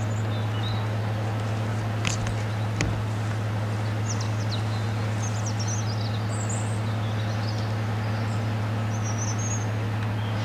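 A Class 55 Deltic diesel locomotive's two Napier Deltic engines give a steady low drone as it pulls its coaches along. Birds chirp high above it, and there are two sharp clicks about two seconds in.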